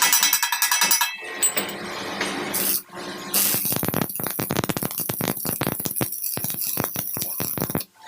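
Metal clinking and rattling from work on metal parts, turning into a dense run of rapid clicks partway through and cutting off abruptly near the end.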